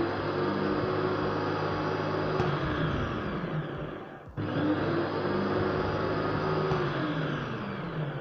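Electric blender motor running empty on a test after repair, a steady whir with a clear pitch. It cuts out for an instant a little past four seconds in and starts again, the pitch sagging before each break.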